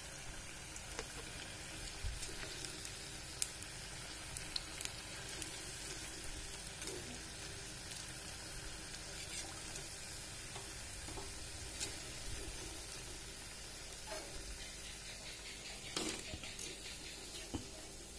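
Small urad dal and rice flour bondas deep-frying in hot oil in an iron kadai, a steady sizzle as they are fried until browned and crisp. A few light clicks of a slotted steel spoon stirring them against the pan.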